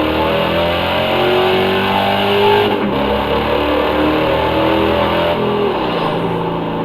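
Music playing through a KitSound Hive X 20 W Bluetooth speaker as a sound-quality test, with layered held notes and chords that change every second or so.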